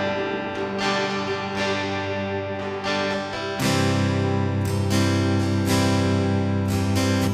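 Background music of acoustic guitar strumming chords at a steady pace, growing fuller and louder with a chord change about halfway through.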